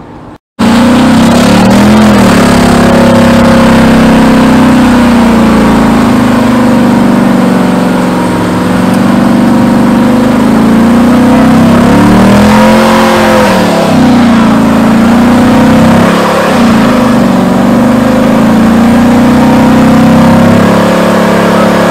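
Chevrolet Camaro convertible's engine held at high revs during a stationary burnout, rear tyres spinning. It is very loud and steady, with the pitch wavering up and down as the throttle is worked. It cuts in abruptly about half a second in.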